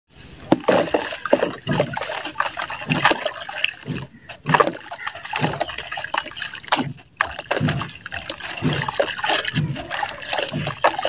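Balls of red dirt crumbled by hand into a tub of soapy water: gritty crunching with irregular splashing, trickling and sloshing as chunks and grains drop in and the hands work the wet mass, with brief pauses twice.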